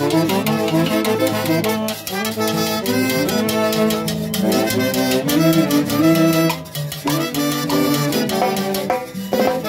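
Live Andean orquesta típica playing a tune: harp, violin and trumpet carry the melody over a drum kit with cymbal keeping the beat.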